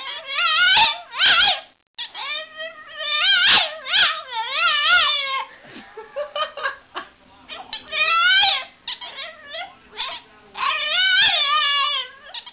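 French bulldog making drawn-out whining howls, its pitch wavering up and down within each call. Several calls come with short gaps between them, the longest lasting about three seconds.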